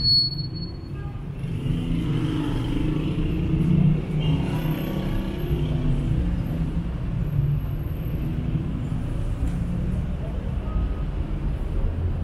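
Street traffic ambience: a steady low rumble of passing cars, with indistinct voices of passers-by about two to five seconds in.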